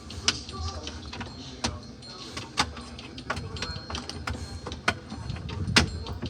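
A thin plastic card worked along a crevice inside a refrigerator: irregular sharp clicks and scrapes of plastic on plastic, about two a second, over low handling rumble.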